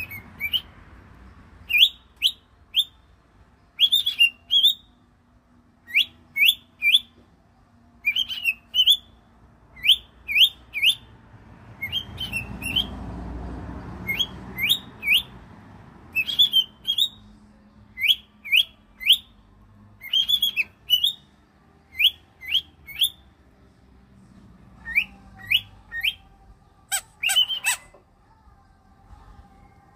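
Cockatiel giving short rising calls in quick groups of two to four, repeated every second or two.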